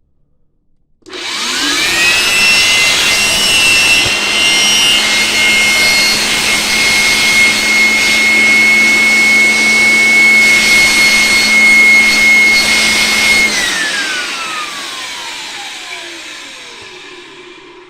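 Krisbow electric hand blower switched on, its motor spinning up to a steady high whine over a loud rush of air as it blows dust out of a laptop's small cooling fan. About two-thirds of the way through it is switched off and the whine falls steadily in pitch as the motor runs down.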